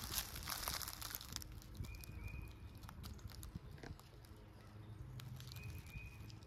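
Footsteps crunching through dry leaf litter for about the first second and a half, then a quieter stretch with faint short high chirps from a bird, two pairs of them a few seconds apart.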